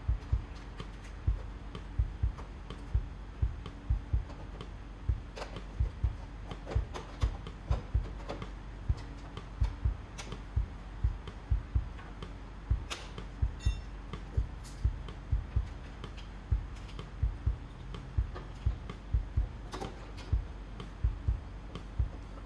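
Irregular deep thuds, two or three a second, with a few sharp clicks scattered among them.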